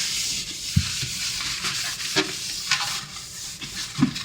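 Paper towel scrubbing the inside of a microwave: a steady scratchy rubbing, with a few soft knocks against the oven walls.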